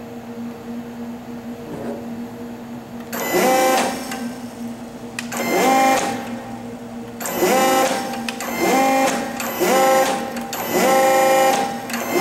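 Servo motor and hydraulic pump of a REXA electraulic linear actuator whining in about six short bursts after the first three seconds, each burst rising in pitch as the motor spins up and then stopping. Each burst is the motor switching on for a set-point change and shutting off once the actuator reaches position. A steady low hum comes before the first burst.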